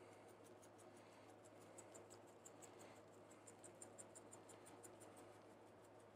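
Faint, rapid ticking of dry brisket rub being shaken from a shaker bottle, several shakes a second, stopping shortly before the end.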